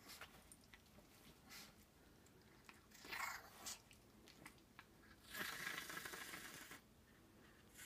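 A small dog chewing and mouthing a cloth item, with faint crunching clicks and a couple of breathy rustling bursts, the longer one about five seconds in.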